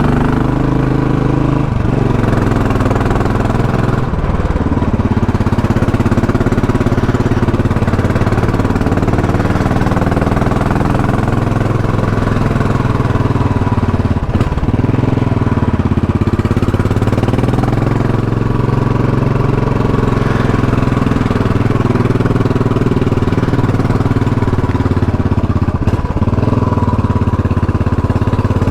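Royal Enfield Classic 500 single-cylinder motorcycle engine running steadily, its pitch shifting a little now and then with the throttle.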